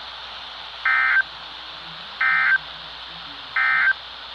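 Three short, identical bursts of buzzy digital data tones, each about a third of a second long and evenly spaced. They are the Emergency Alert System (SAME) end-of-message code sent on NOAA Weather Radio, marking the end of the broadcast alert.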